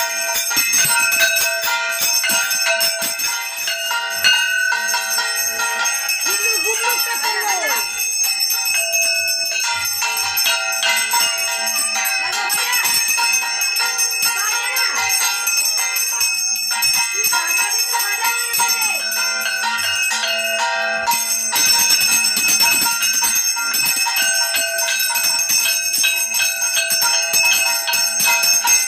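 Puja hand bell rung steadily and rapidly during aarti, a continuous bright ringing with many overtones.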